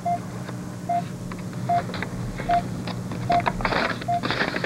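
Hospital patient monitor beeping steadily, one short tone about every 0.8 seconds, over a low hum. Paper rustles as it is handled, loudest about three and a half to four seconds in.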